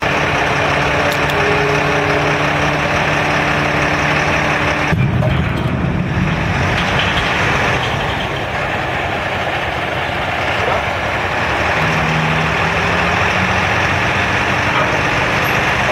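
Skip-loader truck's diesel engine running steadily, driving the hydraulic lift arms that lower a steel skip container onto the ground. The engine note changes abruptly about five seconds in, and a new low hum comes in near the end.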